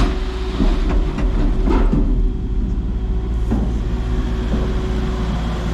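An engine running steadily, with a steady tone that stops about five seconds in, and a few short knocks about a second in, near two seconds and at three and a half seconds.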